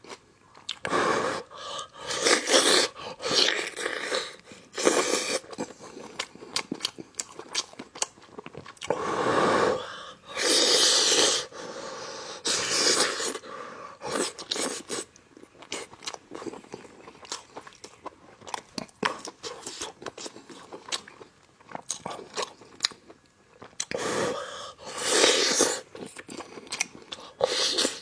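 Close-miked eating of tender stewed spicy lamb off the bone: wet chewing and biting with many sharp mouth clicks, broken by louder noisy bursts about a second long.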